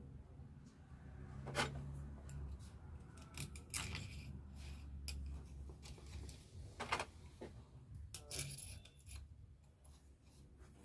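Small metal parts and hand tools clinking, clicking and scraping against each other at irregular intervals while a starter motor is being worked on by hand.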